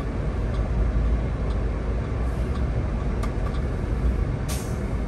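Solaris Urbino 18 articulated city bus on the move, heard from the driver's seat as a steady low rumble of engine and road noise. About four and a half seconds in comes a short hiss of air from the bus's pneumatic system.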